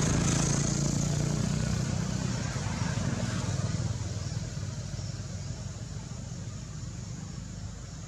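A low motor rumble that fades out over the first four seconds, leaving steady background noise.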